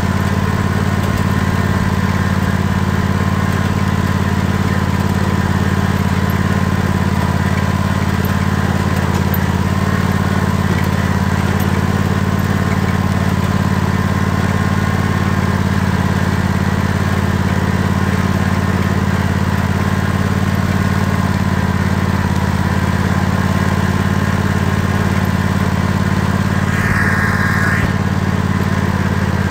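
Tractor engine running steadily as it drives across the lawn, a constant low drone with no change in speed.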